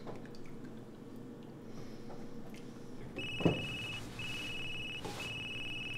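Wooden spoon stirring softly in a steel cooking pot, then a single sharp knock about three and a half seconds in. Just before the knock a mobile phone starts ringing with a high, steady electronic tone that sounds in pulses, broken by short gaps.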